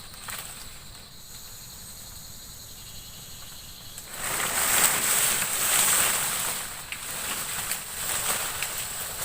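Insects buzzing steadily at a high pitch, with a louder rushing noise that sets in about four seconds in and eases near the end.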